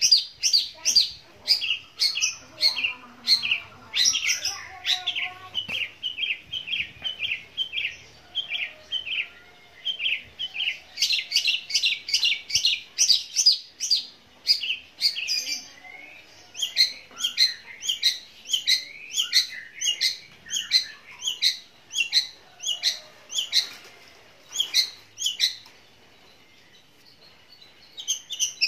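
Caged long-tailed shrike (cendet) singing a long, loud run of sharp chirps at about three a second, its mimicry of fighting house sparrows (burung gereja). The song breaks off briefly near the end.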